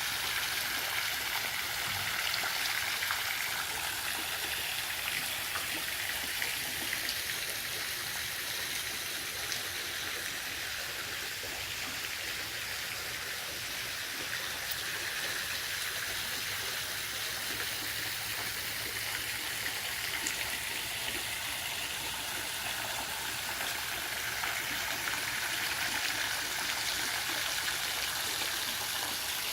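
Pool waterfall spilling steadily into the pool: an even, unbroken splashing of falling water.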